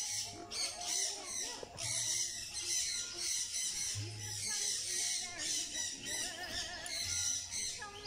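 Many captive birds chirping and calling at once in the aviaries, a steady high chatter. A few wavering calls stand out about six seconds in.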